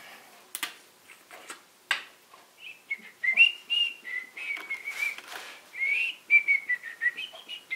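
A person whistling a tune, a single wandering high note that starts about three seconds in. A few light knocks and clicks from handling the glue bottle and wood come in the first two seconds.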